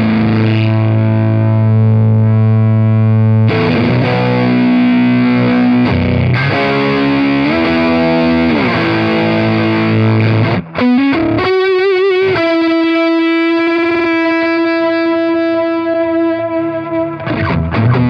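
Electric guitar played through a Kernom Ridge overdrive pedal, with distorted chords ringing out and changing every few seconds. About eleven seconds in, a single note wobbles in pitch with vibrato and is then held, sustaining for several seconds before new notes start near the end.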